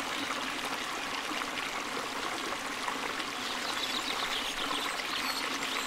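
A steady, even rushing hiss like running water, with faint wet squishing as raw chicken is mixed by hand in a thick egg and cornflour marinade, mostly in the second half.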